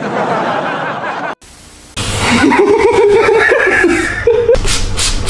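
People laughing, then near the end a quick run of short hissing pulses, about five a second.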